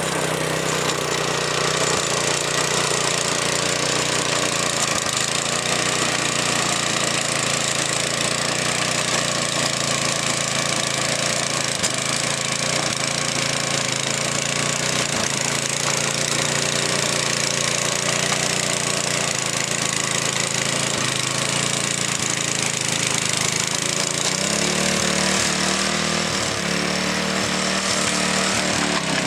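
Earthquake garden tiller's small gas engine running steadily as it tills soil, with a rattling, hammering texture; the engine note shifts near the end.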